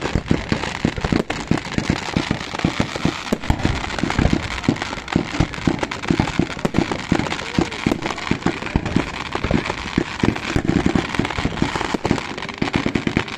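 Fireworks going off in a rapid, continuous run of sharp bangs and crackles, several a second.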